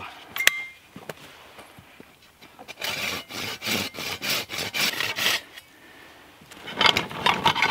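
Silky folding pruning saw cutting into a freshly cut branch, with a couple of seconds of quick back-and-forth strokes through the wood. A few clinks follow near the end.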